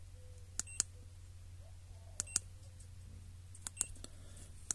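Keypad buttons of an Ancel FX2000 handheld scan tool clicking. There are four quick double clicks, a press and a release each, about a second or so apart, over a faint steady low hum.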